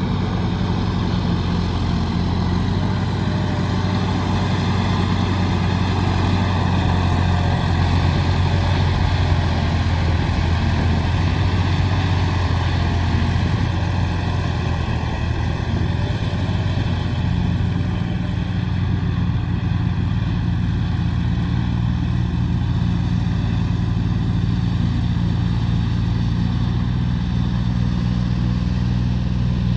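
John Deere tractor's diesel engine running steadily with a low, even hum as it works a muddy field.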